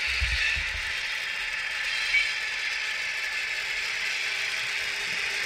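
H0-scale model freight train, an ÖBB class 2068 diesel locomotive model hauling hopper wagons, rolling past over track and points. Its metal wheels click and rattle steadily, with a low rumble in the first second and a sharper click about two seconds in.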